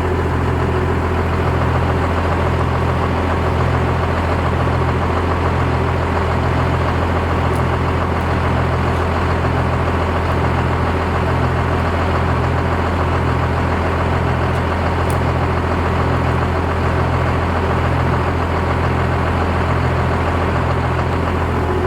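Truck engine idling steadily: an even low drone with a regular low pulse.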